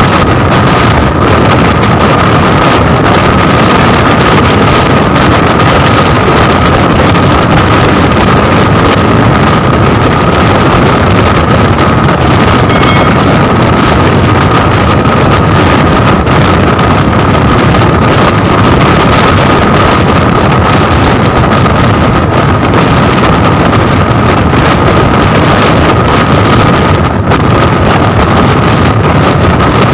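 Indian express train running at speed: a loud, steady rush of wheel, track and wind noise, with wind on the microphone and a thin steady whine above it.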